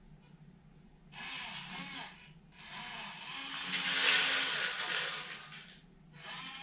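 Linear servos on a toy RC excavator whirring briefly as the bucket tips, then a load of wood chips pouring and rattling into a plastic Bruder dump truck's bed, loudest about four seconds in.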